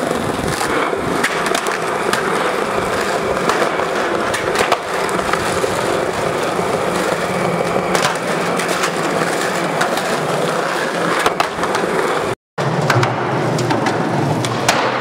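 Skateboard wheels rolling steadily on concrete, a continuous grinding rumble with sharp clicks now and then. The sound drops out briefly once, about three-quarters of the way through.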